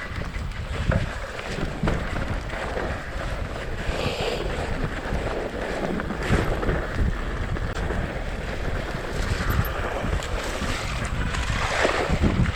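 Wind rushing over the camera microphone on a fast mountain-bike descent, with the bike knocking and rattling over rough, wet ground.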